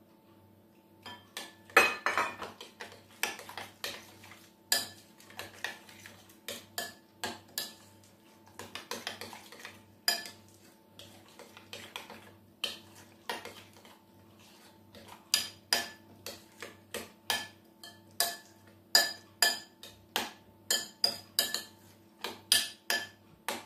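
Spoon clinking and scraping against a glass mixing bowl as a yogurt dip is stirred: a long series of sharp clinks starting about a second in, coming faster and more evenly in the second half.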